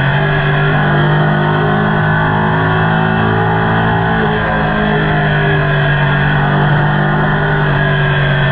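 Ducati Panigale superbike's Termignoni exhaust droning at a steady engine speed while cruising, one unbroken note with little change in pitch.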